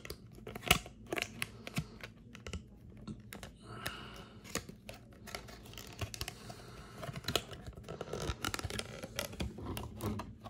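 Small plastic action-figure parts clicking and tapping irregularly as they are handled and pressed together, with a clear plastic effect piece scraping and rustling about four seconds in.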